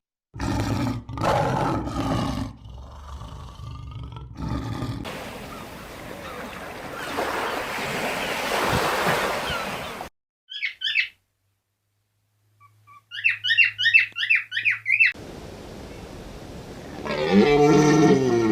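A run of different animal calls, one after another: rough low roaring calls at the start, a stretch of noise, then quick high chirps and trills, and a pitched call falling in pitch near the end.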